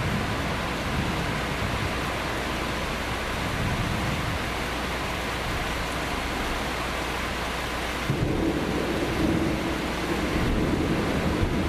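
Steady rain falling in a thunderstorm, with thunder rumbling in and the sound growing louder from about eight seconds in.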